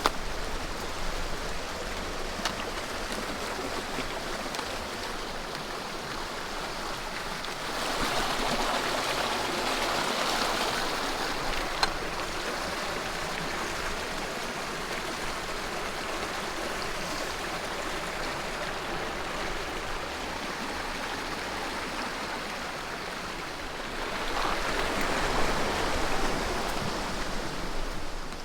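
Running water: a steady rushing sound that swells louder about eight seconds in and again near the end.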